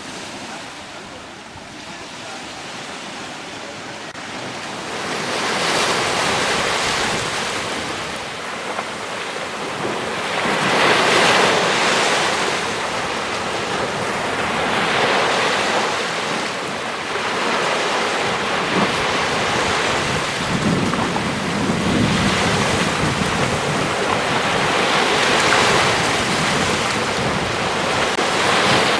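Sea surf: waves washing in, the rush of water swelling and ebbing every four to five seconds.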